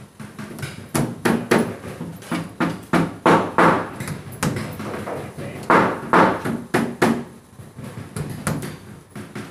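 Claw hammer driving nails into a plywood wall panel: a run of sharp, irregular blows, about two or three a second, each ringing briefly.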